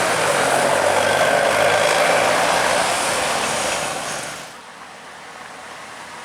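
A bus passing close by, its engine and tyre noise loud and then falling away sharply about four and a half seconds in.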